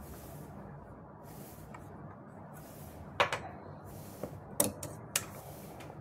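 Cloth being handled: soft scraping strokes of tailor's chalk marking fabric, then the folded, buckram-stiffened neck piece rustling as it is opened out, with three sharp crackles about three, four and a half and five seconds in.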